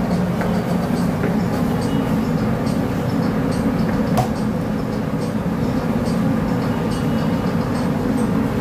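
Steady low rumble of restaurant kitchen equipment at a flat-top griddle station, with a few faint light clicks.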